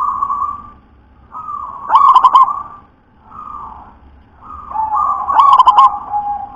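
Zebra dove (perkutut) cooing: held notes that break into a quick rolling burst of coos, twice, about two seconds and five and a half seconds in. A steadier, slightly lower note runs through the last couple of seconds.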